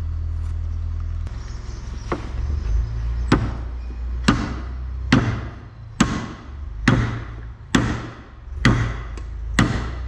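Hammer blows driving a bearing into place on a loader wagon's pickup drive, about one strike a second, some nine sharp strikes starting about two seconds in. A low steady hum lies underneath.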